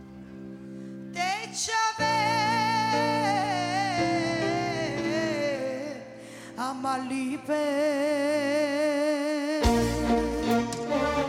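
A woman singing a slow, free-time passage into a microphone, holding notes with wide vibrato over sustained keyboard chords. The drums and band come back in near the end.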